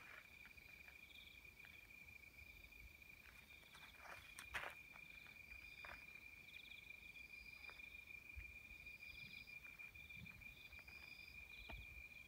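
Evening insects singing faintly: one steady high-pitched trill with shorter pulsed chirps repeating about once a second above it. A few soft footsteps on gravel around the middle.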